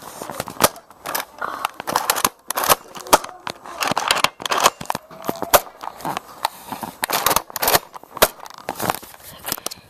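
Nerf Rampage pump-action dart blaster being worked and fired, a rapid, irregular string of sharp plastic clacks and snaps.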